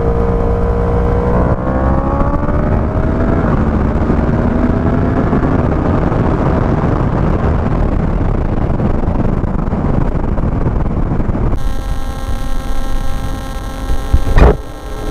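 Yamaha R1's crossplane inline-four with an aftermarket exhaust pulling hard, its pitch climbing, dipping once about three seconds in as at a gear change, then climbing again before it fades into steady wind rush. Near the end it gives way to a steady electrical hum and a single loud thump.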